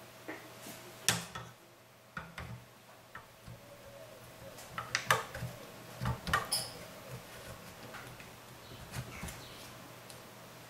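Scattered clicks and taps of hands handling a DC spindle motor and seating it in the plastic spindle holder on a CNC 3018 router's Z-axis carriage, with a quick cluster of sharper knocks about five to six seconds in. A faint steady hum runs underneath.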